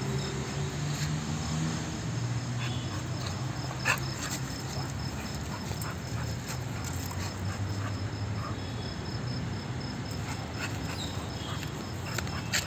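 A German shepherd and an American bully play-fighting: scuffling, with intermittent low play-growls lasting a second or two each. There is a single sharp knock about four seconds in.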